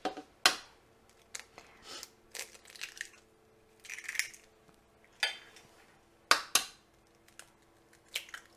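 Two eggs being cracked open: scattered sharp taps and the crunch of breaking eggshell, with pauses between.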